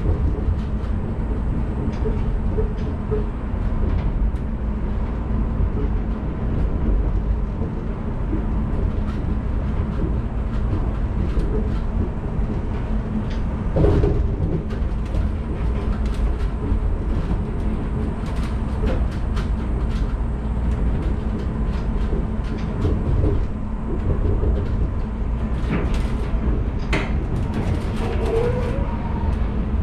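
1993 Mitsubishi 1000 series suspended monorail, a rubber-tyred car hanging from its beam, running along the track, heard from inside the cab: a steady low rumble with scattered clicks and knocks, the loudest about halfway through and several near the end.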